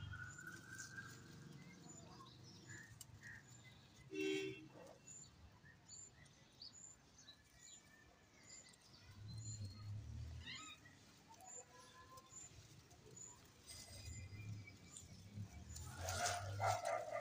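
Faint outdoor ambience: a short, high chirp repeating about twice a second, with a few other bird calls. Near the end come leaves rustling and soft bumps.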